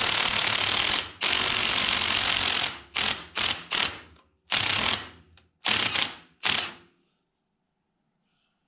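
Cordless impact wrench running in a series of bursts, two long ones followed by several short ones, stopping about seven seconds in. It is loosening bolts on the cylinder head of a small Yanmar diesel tractor engine.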